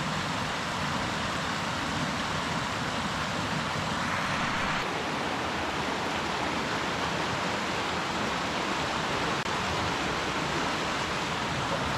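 A small woodland brook flowing steadily: an even rush of running water.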